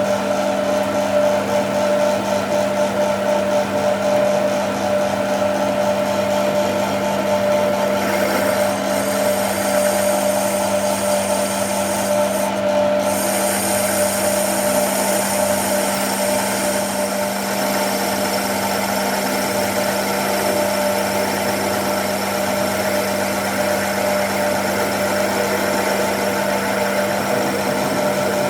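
A motor-driven shop machine running steadily, a constant hum with a higher whine above it.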